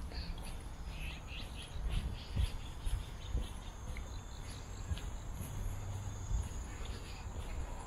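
Insects chirring outdoors: a steady, high-pitched drone that sets in a few seconds in and holds. Low, irregular thuds and rumble run underneath.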